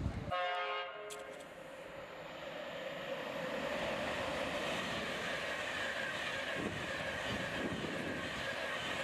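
InterCity 225 express passenger train passing through the station at speed on the main line: a horn blast lasting about a second near the start, then a rush of wheels and air that builds over a couple of seconds and holds steady as the coaches go by.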